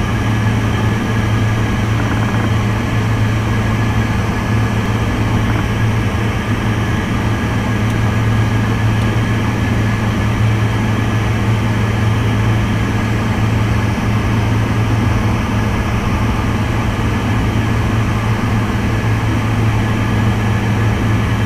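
Steady cockpit noise of an aircraft in flight: the engines and airflow make a constant low hum that does not change.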